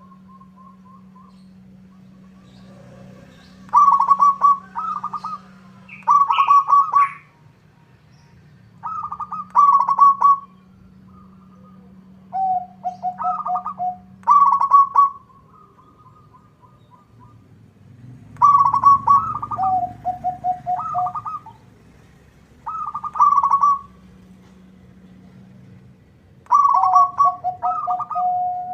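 Zebra dove (perkutut) cooing: repeated phrases of quick staccato notes, about one phrase every two to three seconds, several ending in a lower, drawn-out trill. A faint steady low hum runs underneath.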